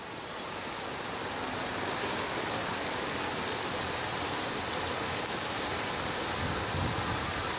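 Fountain jets splashing down into their basin: a steady rush and hiss of falling water that fades in at the start.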